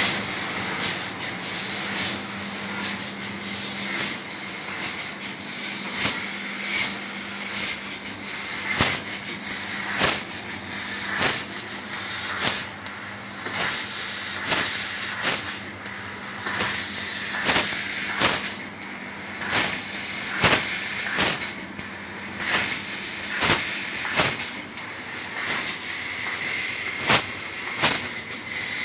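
CNC laser cutter cutting a jali pattern: a steady hiss with a low hum, broken by sharp pops at uneven intervals, about one every second or two.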